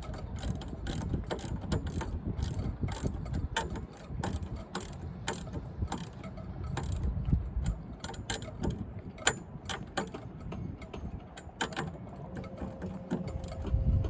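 Irregular metallic clicks and ticks from a clamp fitting on a stainless steel fender basket being worked and tightened by hand onto a boat's bow rail, over a low wind rumble on the microphone.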